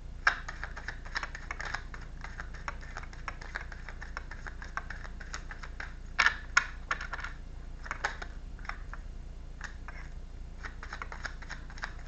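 Rapid, irregular light clicking and tapping, with a louder click just after the start and a cluster of louder clicks about six seconds in.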